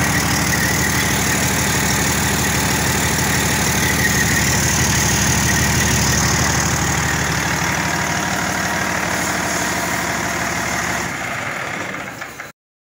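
Detroit Series 60 12.7-litre inline-six turbo diesel running steadily at idle on a test run. About eleven seconds in the low rumble drops away and the sound fades, then cuts off abruptly near the end.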